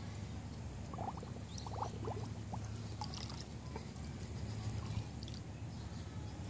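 A dog pawing and shifting its feet in shallow pool water, making small splashes, trickles and drips, mostly in the first few seconds. A steady low hum runs underneath.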